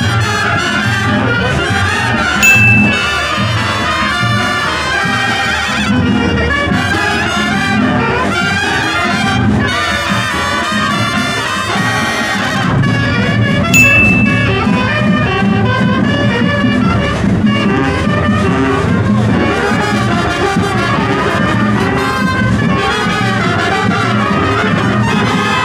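Brass marching band playing, trumpets and trombones to the fore, with two short sharp accents, one a few seconds in and one about halfway through.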